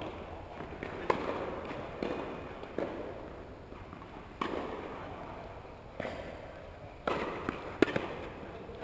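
Tennis ball bouncing on a hard indoor court and struck by a racket, each pop followed by a long echo through the hall; the sharpest, loudest crack near the end is the racket striking the serve.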